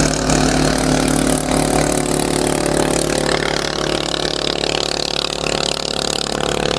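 A large passenger riverboat's diesel engine running steadily at cruising speed: an even, unbroken drone under a broad rushing noise of wind and water.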